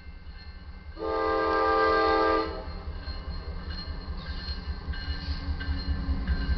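The horn of an approaching GE Dash 9-40CW diesel locomotive blows one long blast about a second in, lasting about a second and a half. Afterward the rumble of the oncoming train grows steadily louder.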